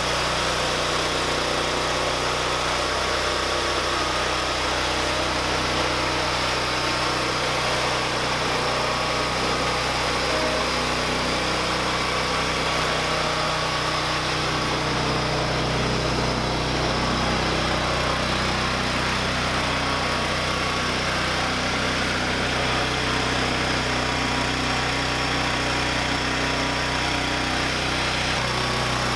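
Small engine of an MTD 990 lawn tractor converted to a loader backhoe, running steadily at a constant speed.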